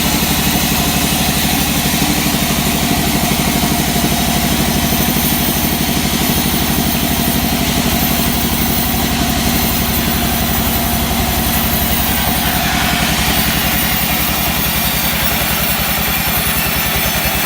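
Sawmill engine running steadily at a constant speed, with a fast, even low pulsing throughout.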